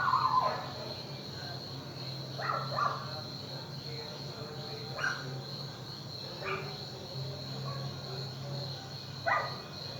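A dog barking in short, separate barks, about six over the stretch, over a steady low hum and a thin steady high tone.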